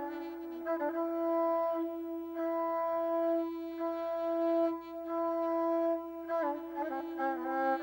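Azerbaijani mugam instrumental interlude: a melody instrument holds one long steady note for about five seconds, with quick ornamented turns just before and after it.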